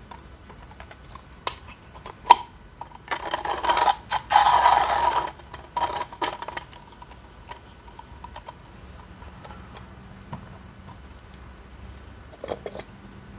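Comandante C40 hand coffee grinder grinding two coffee beans: a couple of sharp clicks, then about two seconds of dense crunching as the burrs crush the beans, with a few shorter crunches after. Light clicks follow near the end.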